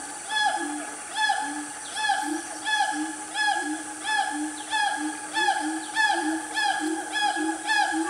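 Siamangs calling: a fast, regular series of arching whoops, about one and a half a second, with short low notes between them.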